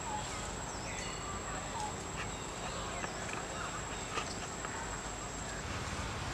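Forest ambience: insects keep up a steady high-pitched drone while birds give short, scattered chirps and falling whistles, with a few faint clicks.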